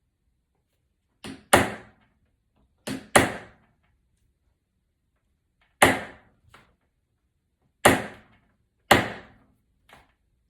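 Hammer blows on a small screwdriver used as a punch against the inside lip of an iPad's aluminum body, knocking a bent-in edge back out. About five hard, sharp strikes a second or two apart, a lighter tap just before some of them.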